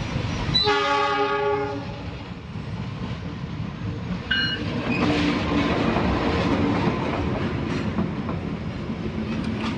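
A train sounds its horn in a blast of a bit over a second, then gives a short, higher toot about four seconds in. From about five seconds the train is heard running past over the crossing, with its wheels clattering on the rails.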